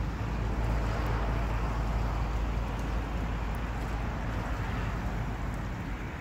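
Wind buffeting the microphone outdoors: a steady low rumble with an even rush over it, swelling a little in the first seconds.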